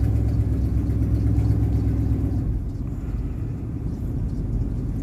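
Low, steady rumble of an idling vehicle engine, easing off about two and a half seconds in.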